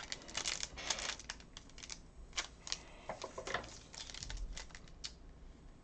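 Glossy Topps Chrome trading cards being flipped and slid against one another in the hand, making irregular light clicks and short rustles.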